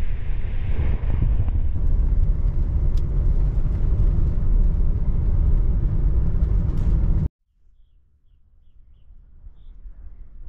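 Van driving on a country road: a steady low rumble of engine and road noise, which cuts off suddenly about seven seconds in, leaving only faint outdoor background.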